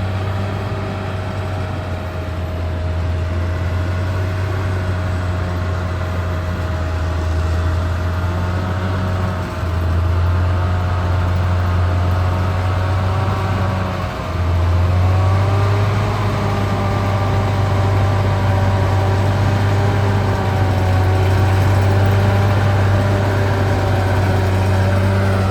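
Caterpillar D6R XL bulldozer's diesel engine running steadily under work, with a whine over it that wavers in pitch. The engine dips briefly twice near the middle and runs a little harder after that.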